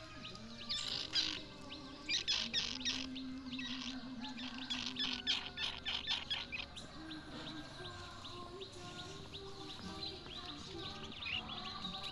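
Young squirrels nibbling and chewing food, heard as short runs of quick, crisp clicks that come and go.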